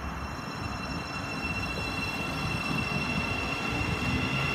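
Thameslink Class 700 electric multiple unit pulling away from a station platform: a steady high electric whine over low wheel-and-rail rumble, growing louder.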